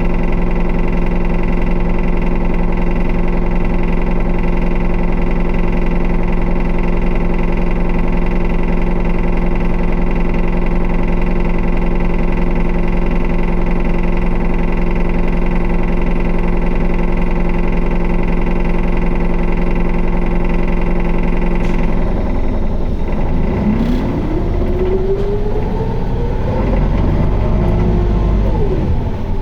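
Isuzu Erga city bus engine heard from inside the cabin, droning steadily at constant speed for about twenty seconds. It then changes, with a whine rising in pitch over several seconds and falling again near the end as the bus speeds up and changes its running.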